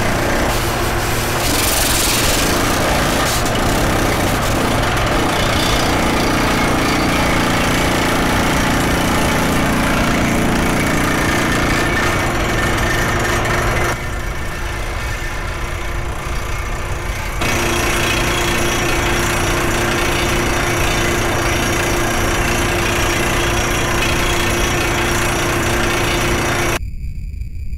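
Heavy industrial machinery running with a steady loud drone and a constant hum, abruptly quieter and duller for a few seconds midway. Near the end it cuts off into a few high, steady electronic tones.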